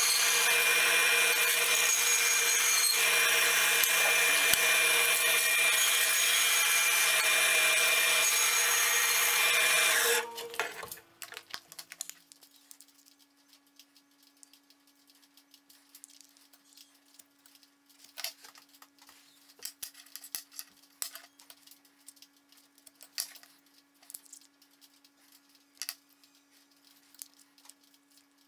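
Bandsaw running and cutting through MDF, a loud steady whine that stops abruptly about ten seconds in. After it, small clicks and taps as a dial caliper is handled against small wooden blocks, over a faint steady hum.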